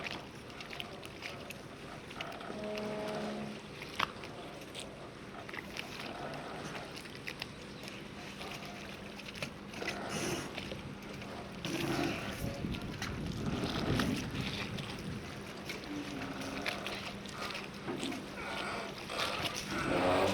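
Harbour ambience: a steady low hum from a boat's engine, with scattered knocks and clicks and distant voices. A louder stretch of voices and engine noise comes about halfway through and again near the end.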